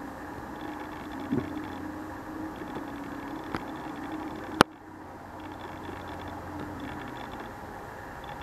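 Steady hiss and faint hum from a faulty camera microphone. There are a couple of small clicks, then one sharp crack about four and a half seconds in, after which the hiss briefly drops.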